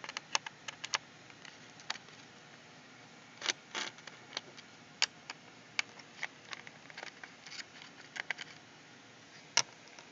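Small screwdriver working the casing screws out of the underside of an HP DV7 laptop, making irregular sharp clicks and ticks, some in quick clusters.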